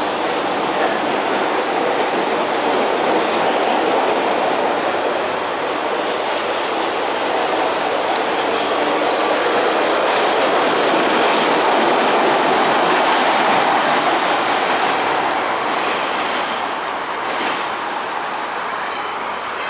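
MBTA Orange Line subway train running along the station platform, a steady loud rumble of steel wheels on the rails that swells through the middle and fades near the end as the train clears the station.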